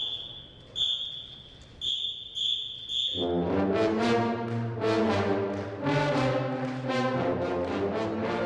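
Five short, high whistle blasts, the last three in quick succession, then a brass pep band comes in playing about three seconds in.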